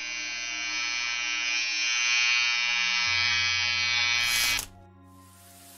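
Electric hair trimmer running with a steady buzz, a little louder from about two seconds in, then switched off suddenly near the end.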